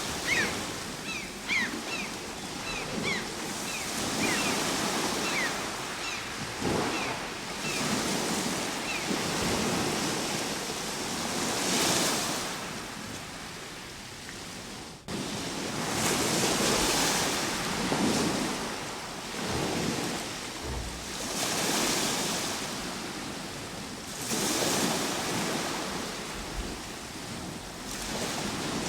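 Ocean waves breaking and washing on a shore, the surf swelling and ebbing every few seconds. A series of short high chirps sounds over the surf in the first nine seconds or so, and the sound dips abruptly for an instant about halfway through.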